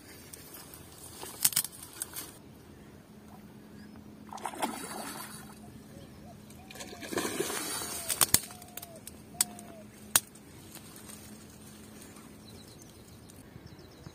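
Water sloshing and splashing in two short spells at the edge of a pond, with several sharp clicks and a short run of small chirps from a bird.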